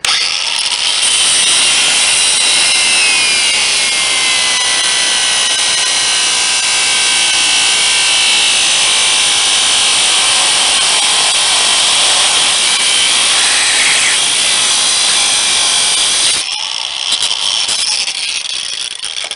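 DeWalt angle grinder cutting through the steel shackle of a bicycle U-lock: a loud, steady, high grinding with a whine that sags in pitch as the disc bites. It stops suddenly about sixteen seconds in, followed by a few lighter knocks.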